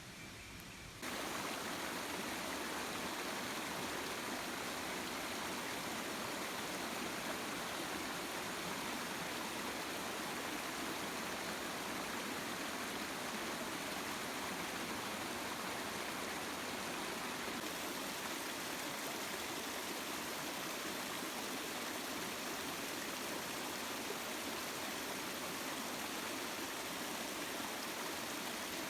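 River water flowing in a steady, even rush, which starts abruptly about a second in.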